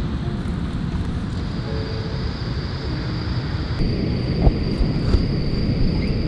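Steady low rumble of outdoor ambience, like wind on the microphone. An insect's thin, steady high trill joins about a second and a half in, with a few sharp clicks near the middle.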